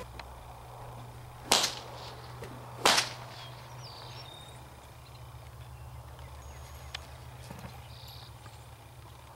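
Two sharp cracks of a whip, about a second and a half apart, cracked by a rider standing on a horse's back.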